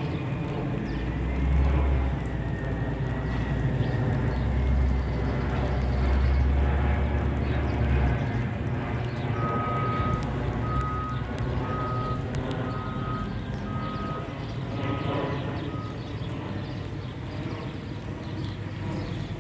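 Garbage truck's engine running, louder in the first part, with a back-up beeper sounding seven short beeps, about one a second, in the middle.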